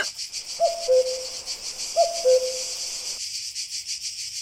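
Crickets chirring steadily, with a bird calling a falling two-note hoot twice.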